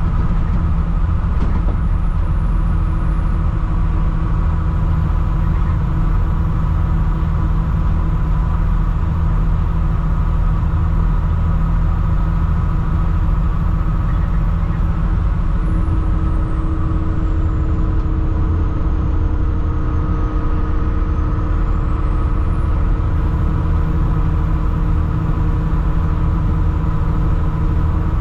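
Mercedes diesel engine of a 2007 Thomas HDX school bus running steadily, with steady higher hums over the low engine note; one of those hums shifts a little over halfway through.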